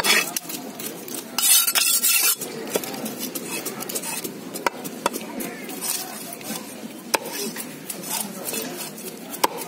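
A long, heavy machete-like fish knife striking and cutting a large fish on a wooden chopping block: sharp knocks at irregular intervals, with a louder rasping rush lasting about a second near the start.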